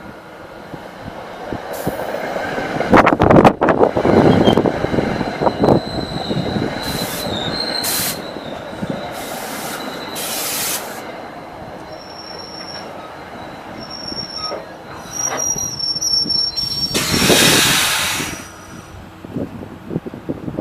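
A train passing close by with a loud rush of rail noise, its steel wheels giving off thin, high, steady squeals. The noise is loudest about three seconds in and again briefly near the end.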